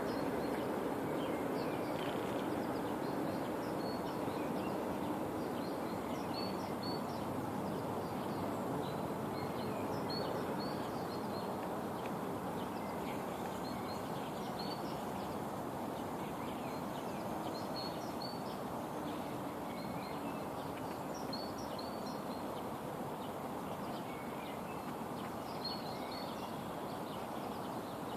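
Many small birds chirping and calling in short high notes, scattered throughout, over a steady background noise of outdoor ambience.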